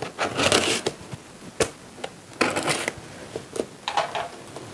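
Cardboard shipping box being opened: packing tape being slit and the cardboard flaps scraped and rustled in irregular bursts, with a sharp tap about one and a half seconds in.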